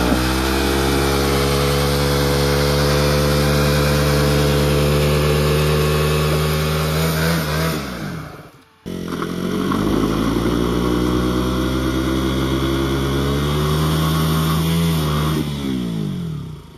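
Motorcycle engine revved hard and held at high revs while its rear wheel spins in mud, a wheel burn that digs the tyre in. Two long revs, each rising, held steady for several seconds, then falling away. The second follows an abrupt break about halfway through.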